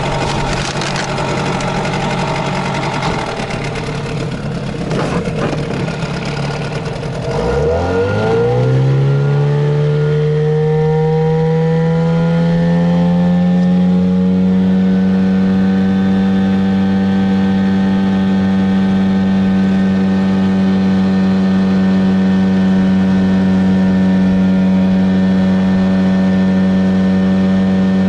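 Boat outboard motor running slowly, then opening up about seven seconds in: its pitch climbs over several seconds and settles into a steady, even run at speed.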